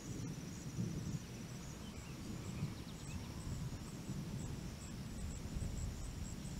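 Storm ambience: a low, uneven rumble under faint high insect chirps repeating about twice a second, with a thin trill in the first second or so.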